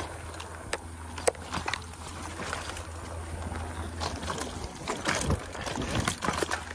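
Electric mountain bike rolling fast down a bumpy dirt trail: tyre noise on the dirt with repeated knocks and rattles as the bike goes over bumps, busier in the second half. A low steady hum cuts out a little past halfway.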